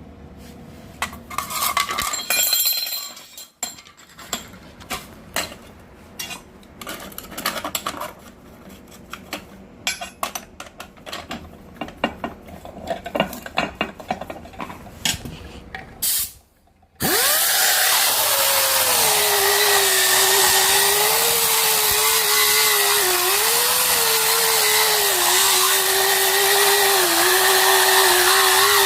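Scattered clicks and knocks of a tool being handled, then a 7-inch pneumatic disc grinder starts a little over halfway through and runs steadily, a loud air hiss with one whining tone. The pitch dips now and then during the repair test run.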